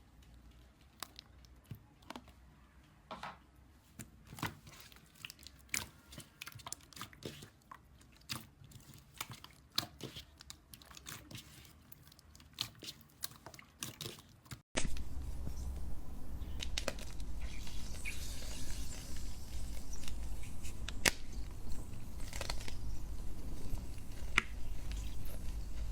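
Slime being handled: squeezed and poked, with many small crackling pops and clicks. About fifteen seconds in it cuts to a louder stretch with a low rumble under the continuing pops.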